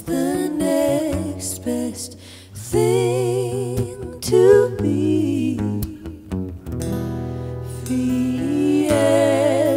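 A pop-folk band playing live, with women's voices singing held notes with vibrato in close harmony over guitar and a steady low bass line.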